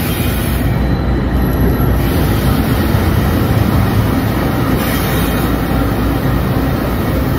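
Union Pacific diesel locomotives passing at close range under an overpass: a loud, steady rumble of engines and wheels on the rails.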